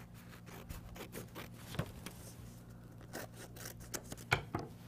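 Scissors snipping through construction paper: a run of faint short cuts, with a couple of sharper snips about two seconds in and near the end.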